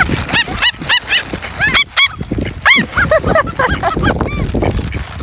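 Birds calling in a group: many short calls that rise and fall in pitch, two or three a second, overlapping one another.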